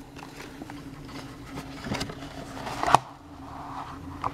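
Cardboard packaging being handled, with light taps and a short tearing rip that builds to a sharp finish about three seconds in, as a paper pull-tab is torn off an Apple Watch box. A faint steady hum lies underneath.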